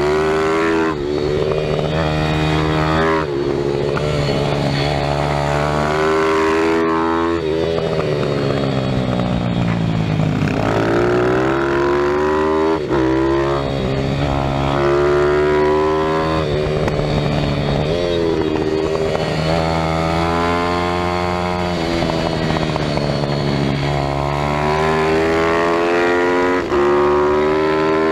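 Single-cylinder pit bike engine heard onboard at speed, revving up repeatedly and dropping in pitch at each gearshift and when slowing into corners, with one long falling run-down partway through. A steady rush of wind noise lies underneath.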